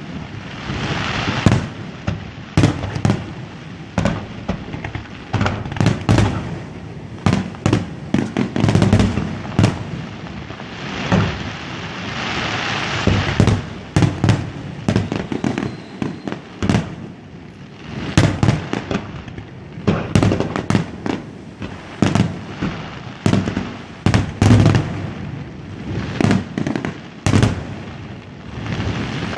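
Fireworks display: a rapid, continuous string of booming shell bursts, often several a second, with stretches of crackle near the start and about halfway through.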